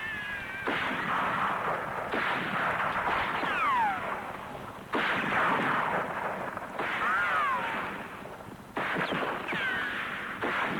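A run of sound-effect gunshots with ricochets: about six sharp bangs, each trailing off in a whine that falls in pitch.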